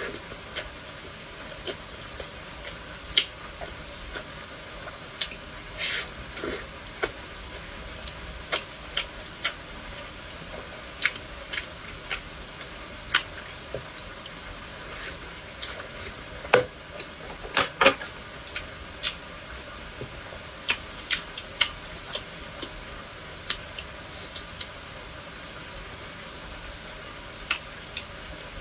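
A person eating close to the microphone: chewing dumplings and skewered food, with irregular short mouth clicks and smacks over a steady faint hiss, a few louder ones about two-thirds of the way in.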